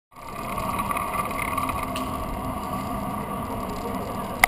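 Steady outdoor noise of a large crowd of cyclists milling with their bikes. A single sharp click comes near the end.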